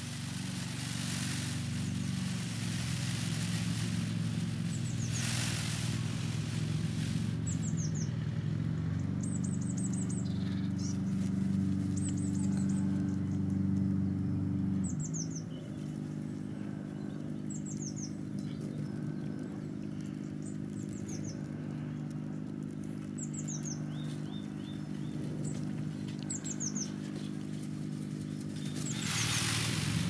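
Small songbird chirping: short, high, downward-sliding notes in quick groups of two to four, repeated every second or two. Under it runs a steady low hum that shifts in pitch about halfway through.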